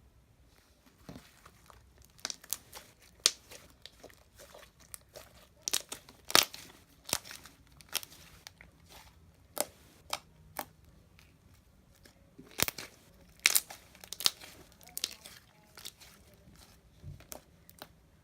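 Slime being squeezed and stretched by hand, giving off irregular sharp pops and clicks that start about a second in.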